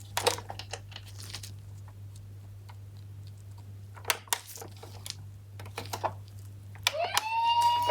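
Toy minicars being handled, with scattered light plastic clicks and rattles. Near the end, a toy ambulance's electronic siren sound starts: a tone that rises, then holds steady.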